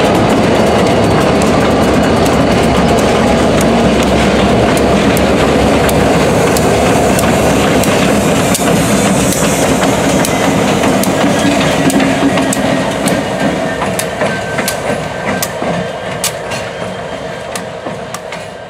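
Several New York, Susquehanna & Western diesel locomotives passing close by, engines running and wheels clacking over the rail joints. The sound fades steadily over the last several seconds as they move away, leaving the wheel clicks standing out.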